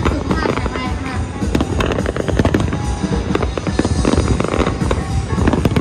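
Fireworks display: a rapid, unbroken run of bangs and crackles from bursting aerial shells, with music playing alongside.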